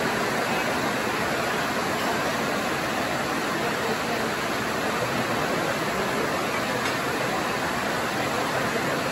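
Steady, loud rushing noise with no voices or tones in it.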